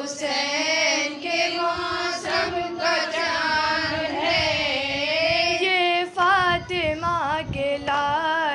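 Female voice singing a noha, a Shia Muharram lament, in long wavering, drawn-out phrases over a steady drone.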